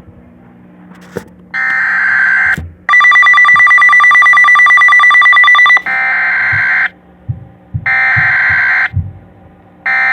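Emergency weather alert data bursts: buzzy, roughly one-second digital header tones that repeat with short gaps, four in all, the last cut off. Between the first and second bursts a rapidly pulsing two-tone beep sounds for about three seconds.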